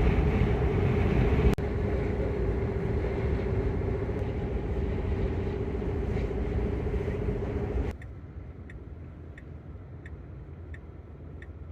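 Tesla electric car at highway speed, heard from inside the cabin: steady road and wind noise with a constant hum. About eight seconds in it cuts off abruptly to a much quieter background with light, regular ticks about one and a half times a second.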